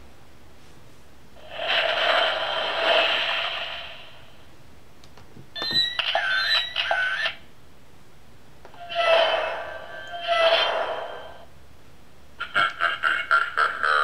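Short electronic sound effects from a children's sound book's button panel, played through its small built-in speaker: four separate effects, each cut off when it ends. First a hissing whoosh, then a clip with gliding electronic tones, then two whooshes, and near the end a quick run of pulses, about six a second.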